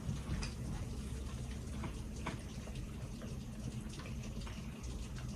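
Steady rain patting on a window, with a few faint clicks now and then.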